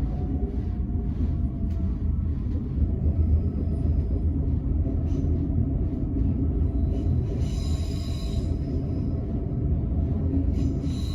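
Train running along the track, a steady low rumble of wheels and carriage with faint clicks. A high, thin whine comes in for about a second and a half about two-thirds of the way through.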